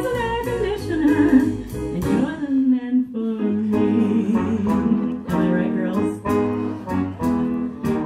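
A small jazz band plays an instrumental break, with a trombone leading over piano, upright bass and drums. A cymbal beat keeps time, about two to three strokes a second.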